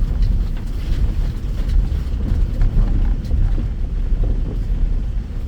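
Land Rover Discovery driving over a rough off-road track: a steady low rumble with scattered knocks and rattles.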